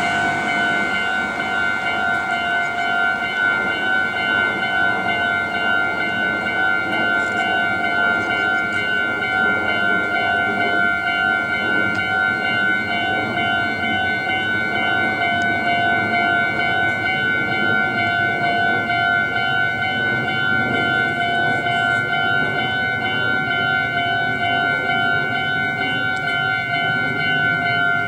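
Japanese level-crossing warning alarm ringing continuously, an electronic bell sounding a fast repeating ding at a steady pitch, the signal that a train is approaching and the barriers are down.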